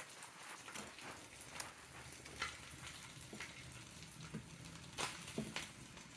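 Spam slices sizzling in a frying pan: a steady hiss with scattered pops and crackles.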